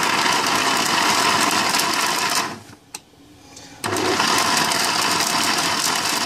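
Philips jug blender running on falsa berries in sugar syrup, stopping abruptly for about a second and a half midway, then starting again. It is pulsed only briefly so the pulp comes off the seeds without grinding them.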